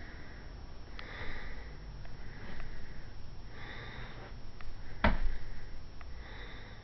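A cat sniffing at its food bowl: a run of short, breathy sniffs about a second apart. A single sharp knock about five seconds in is the loudest sound.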